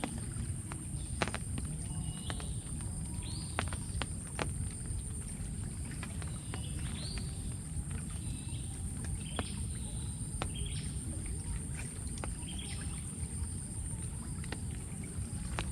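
Steady low rush of stream water under a constant high insect drone, with short chirping calls repeating about once a second and a few sharp clicks.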